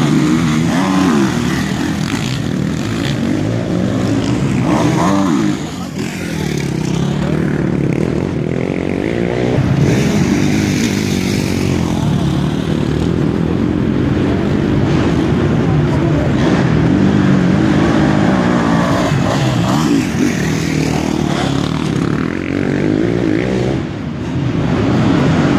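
Motocross dirt bikes racing round the track, their engines revving up and down as they pass, with several bikes running at once.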